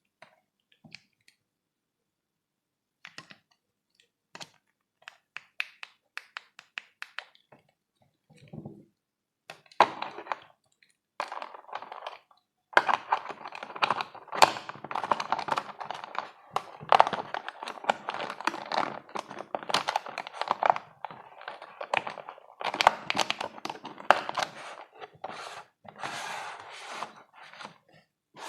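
Parcel packaging being handled and opened: scattered small taps and clicks, then from about ten seconds in a long stretch of dense crinkling and rustling.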